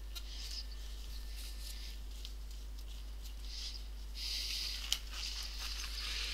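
Nitrile gloves being pulled onto the hands: soft rubbery rustling and rubbing, with one sharp click about five seconds in.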